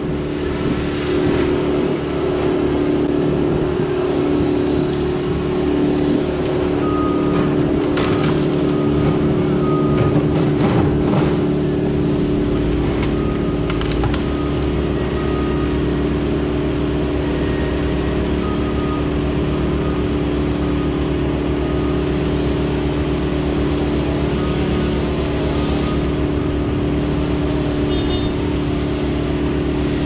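An engine running steadily at a constant speed, a continuous hum that does not change pitch.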